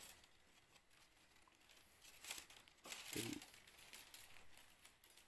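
Dry rustling and crinkling of long plant-leaf strips being bent and threaded by gloved hands while weaving a pot holder. It comes in irregular bursts, loudest a little past two seconds in and again near three seconds.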